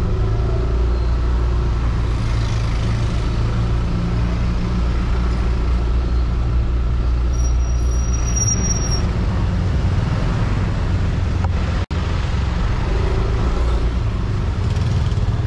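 Yamaha Aerox scooter's single-cylinder engine running under way in traffic, with steady wind rush over a bike-mounted camera. A thin high tone sounds for about a second and a half around eight seconds in, and the sound drops out for an instant near twelve seconds.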